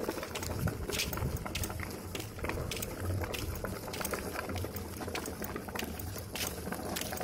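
Cardboard toy truck dragged over cobblestones, its cardboard wheels and box body knocking and rattling in quick, irregular clicks.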